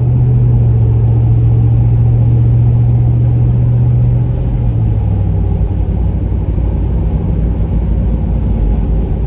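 Steady low rumble of a car driving on the road, heard from inside the cabin. Its strong engine hum drops a little in pitch and level about four and a half seconds in.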